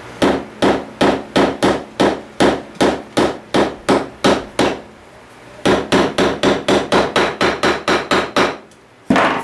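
Hammer driving nails into pine boards: a steady run of about a dozen blows, a short pause, then a faster run of blows and one last blow near the end.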